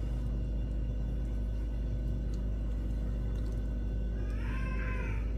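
A steady low hum, with a faint, brief wavering high-pitched sound about four seconds in.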